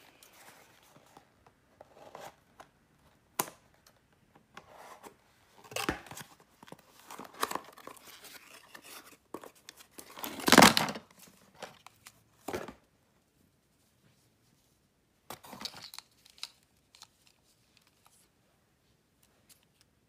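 A small cardboard box being opened and handled by hand: intermittent scraping, rustling and tearing of cardboard and paper, with a few sharp clicks and quiet gaps. The loudest is a short tearing burst about halfway through.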